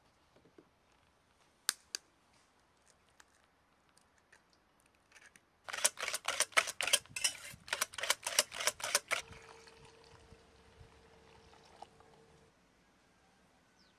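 Eggs knocked against the rim of an enamel bowl, two sharp cracks, followed by a wire whisk beating eggs in the enamel bowl: a run of quick rattling strokes, about five a second, for some three and a half seconds. A faint steady tone follows for a few seconds.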